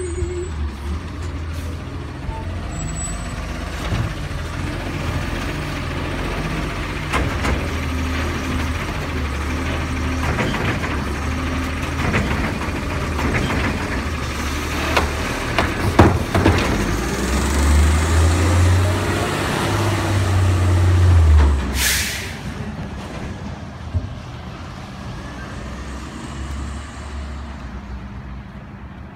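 Diesel engine of an Autocar New Way Sidewinder automated side-loader garbage truck running as its arm lifts and dumps a cart. Knocks and clanks come about halfway through, then the engine revs up for about four seconds to drive the hydraulics. A short sharp hiss of air follows, typical of the air brakes, and the truck noise then drops away.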